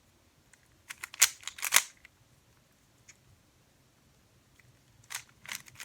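Rubik's cube layers being turned by hand: two short bursts of quick plastic clacks, about a second in and again near the end, with quiet between.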